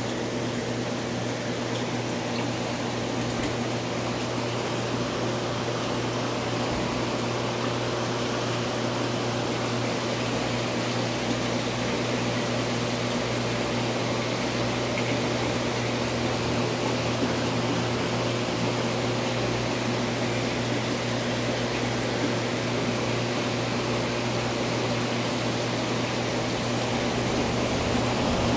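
Steady machine hum with an even rush of air noise and a low drone underneath, unchanging throughout.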